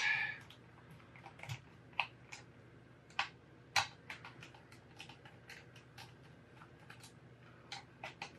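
Irregular light clicks and ticks of a precision screwdriver working small screws out of a LeapPad 3's plastic back case, with a few sharper clicks among them.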